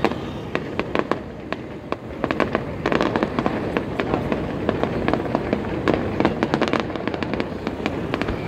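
Fireworks display: a rapid, continuous run of sharp bangs and crackles from bursting shells, getting denser and louder about three seconds in.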